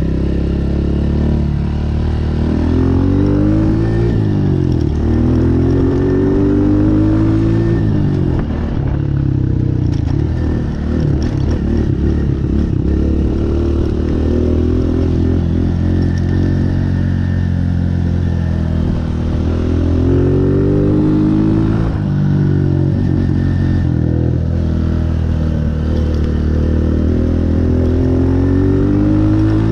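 Honda CRF125F Big Wheel dirt bike's single-cylinder four-stroke engine under riding load, revving up and dropping back several times as the rider accelerates and shifts.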